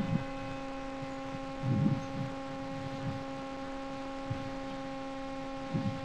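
A steady electrical hum with a dead-even pitch and several overtones, with a few soft low bumps about two seconds in and again near the end.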